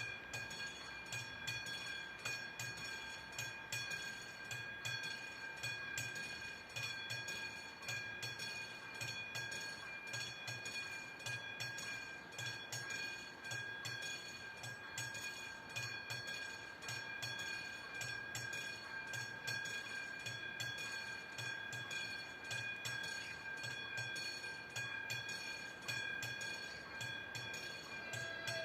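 A train rolling over a railway level crossing, its wheels clacking over the rail joints in regular pairs of low thuds, while the crossing's warning bell keeps ringing.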